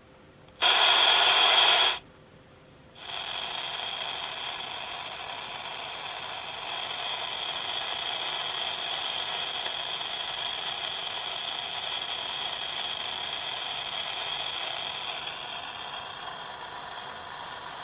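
Tablepro MG2 speaker's FM radio hissing with static, no station tuned in. A loud burst of static lasts about a second, then after a short break a quieter, steady hiss carries on.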